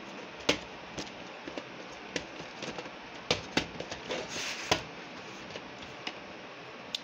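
Handling noise from a VHS tape: a string of light clicks and taps of the plastic cassette and its cardboard sleeve, with a short scraping rustle about four and a half seconds in as the cassette slides out of the sleeve.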